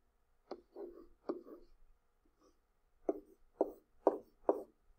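Stylus tapping and dragging on a tablet as numbers are handwritten: a few short taps in the first second and a half, then four more about half a second apart.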